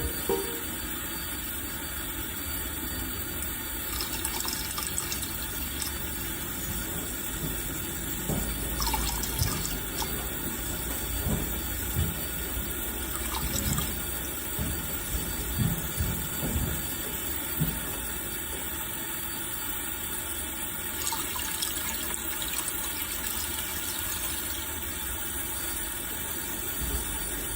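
Steady rushing water, with scattered low thuds.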